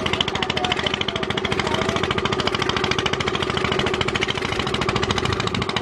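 An engine running steadily with a rapid, even chugging beat and a constant hum.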